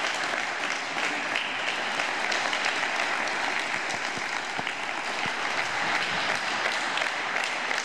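Audience applauding steadily, many people clapping.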